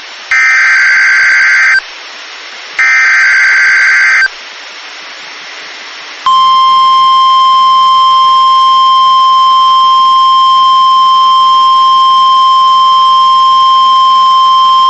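NOAA Weather Radio emergency alert signal. First come two bursts of the SAME digital header, each a screeching data burst about a second and a half long. After a short pause, about six seconds in, the steady single-pitch 1050 Hz warning alarm tone begins and holds, announcing a severe thunderstorm warning.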